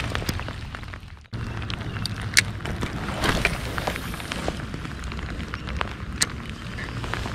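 Steady rain falling on the river and on the kayak and rain jacket close by: an even hiss with many scattered sharp drop hits. The sound cuts out briefly about a second in.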